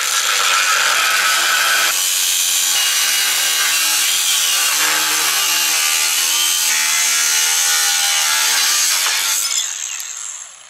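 Angle grinder with a thin cut-off wheel cutting through a metal strip: a loud, steady grinding screech over the motor's whine. About nine and a half seconds in it comes out of the cut and winds down.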